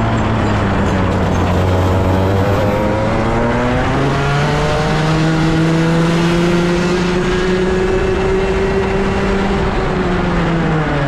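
125cc racing kart engine heard from on board, running at full throttle: its pitch steps up about four seconds in and keeps climbing as the kart gathers speed, then drops near the end as the kart slows.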